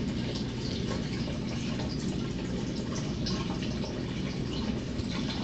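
Aquarium filter running: a steady trickle and splash of water with a low hum and a few faint drips.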